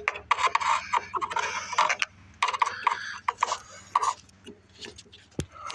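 Hand tools working on metal car parts: a fast, irregular run of clicks, taps and scrapes, with a sharper knock about five and a half seconds in.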